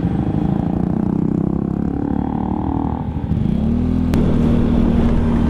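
Italika Vort-X 300 sport motorcycle engine running under way, with a steady rumble of road and wind noise. A little over three seconds in, the engine note steps up and then holds at one steady pitch, and a single sharp click comes about a second later.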